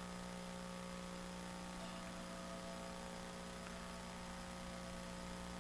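Steady electrical hum with a faint hiss, unchanging throughout; no other sound.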